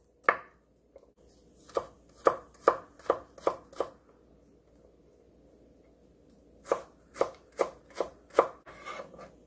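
Chef's knife chopping garlic into thin slivers on a wooden cutting board: sharp knocks of the blade on the board, about two or three a second, in two runs with a pause of a few seconds between them.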